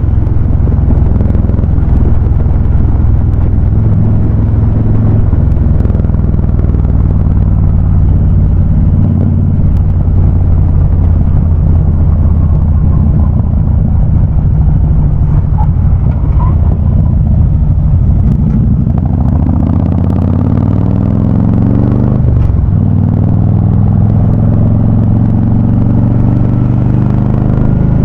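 Harley-Davidson Ultra Classic V-twin running through Vance & Hines High Output exhaust while riding, with a steady engine note for most of the time. About two-thirds through, the revs climb, drop sharply as it shifts up, and climb again.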